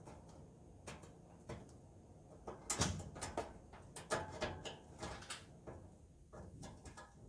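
Irregular clicks and light metal knocks from hand-tool work at the back of a gas range's sheet-metal cabinet, a few of them ringing briefly; the loudest come about three seconds in.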